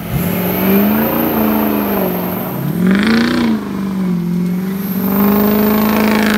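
Ford 6.0 Powerstroke turbo-diesel V8 pickup engine revving under load, its pitch rising and falling several times, with one sharp rise and drop about three seconds in.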